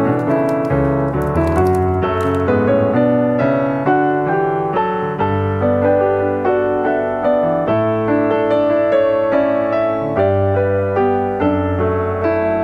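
Background piano music with a steady flow of notes. A plastic snack wrapper crinkles briefly during the first two seconds.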